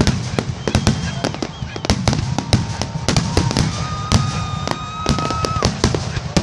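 Fireworks finale: rapid, dense bangs and crackles, several a second, with a few held whistling tones over them.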